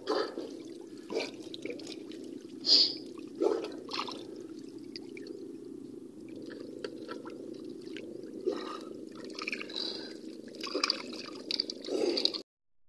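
Water splashing and sloshing as fish thrash in a fish-corral net drawn up at the surface, in several short splashes over a steady low hum.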